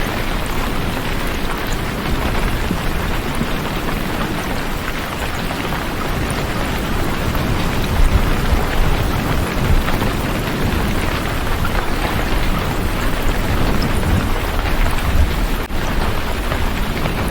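Steady heavy rain, a dense even hiss with a low rumble underneath.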